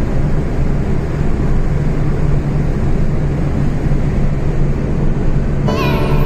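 Steady rumble of a car driving at highway speed, road and engine noise with a constant low drone. Music comes in near the end.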